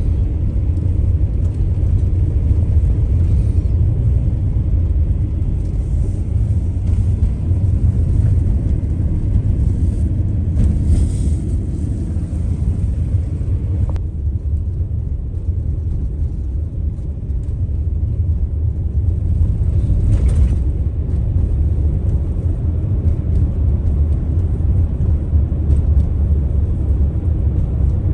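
A motor vehicle running with a steady low rumble.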